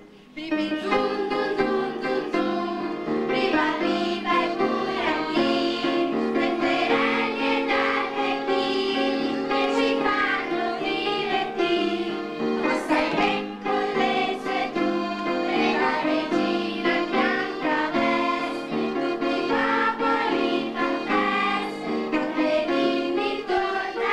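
Group of children singing a song together over musical accompaniment, starting just after a brief pause.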